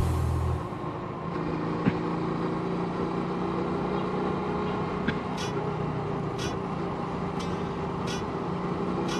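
Motorcycle engine running at a steady cruise with wind and road noise, heard from the moving bike. In the second half come a few brief, sharp high ticks.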